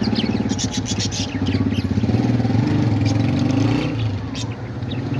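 An engine running steadily in a fast, even pulse, with short high bird chirps over it.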